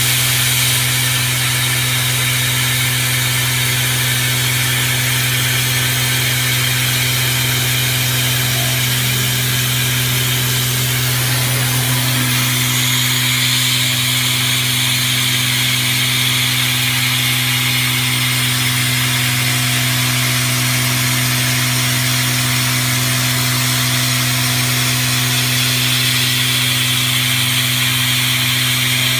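YL-12241R+U-2 CNC router running and machining wood: a steady, unbroken machine noise with a constant low hum under a high hiss.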